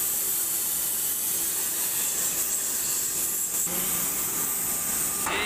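Steady hiss of a gas-cutting torch burning through a steel wagon body panel, shifting slightly about three and a half seconds in.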